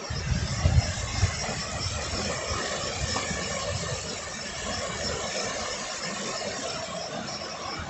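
River water rushing through rapids, a steady hiss. Wind buffets the microphone in the first second or so.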